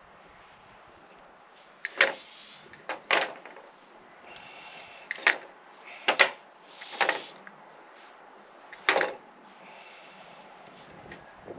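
Pliers and hand tools handled and set down on a wooden table during rope work on a chainsaw recoil starter: a string of about eight sharp clicks and knocks between about two and nine seconds in, some with a short scrape.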